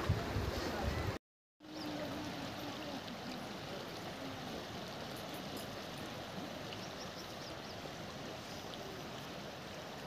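Wind buffeting the phone's microphone for about a second, then a brief cut to silence, followed by a steady soft outdoor hiss.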